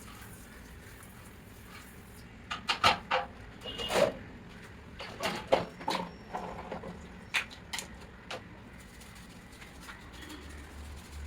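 A run of sharp clicks and knocks, several in quick succession, starting a couple of seconds in and dying away near the end, over a low steady background.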